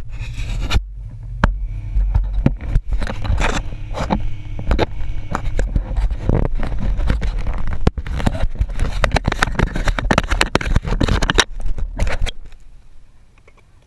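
Fingers rubbing, scraping and knocking on the housing of an action camera right at its microphone, many close clicks and scrapes, over the low hum of an ATV engine idling. The hum fades out about twelve seconds in.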